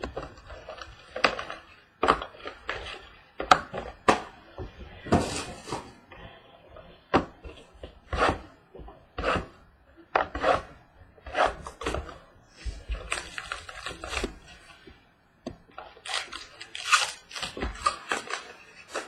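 Trading card boxes and packs being handled and opened by hand: irregular crinkling, rustling and light knocks of cardboard and wrapper.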